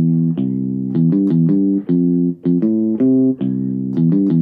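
Yamaha portable keyboard playing a bassline in the left hand on a bass voice, walking the notes of a C chord (root, fifth, third) under right-hand chords. The short notes change two to three times a second, each with a sharp attack.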